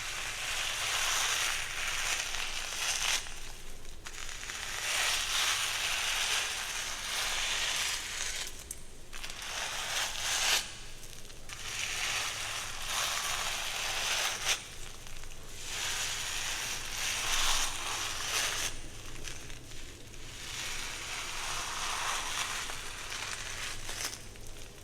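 Scratchy rustling of hair being worked close to the microphone, in long strokes of several seconds separated by short pauses.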